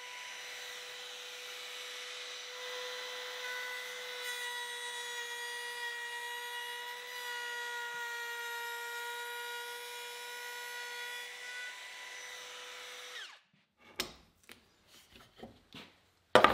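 Router with a bearing-guided pattern bit cutting a curve in thick white oak: a steady high whine mixed with the chip-cutting noise of the bit in the wood. About thirteen seconds in the router is switched off and winds down, followed by a few knocks.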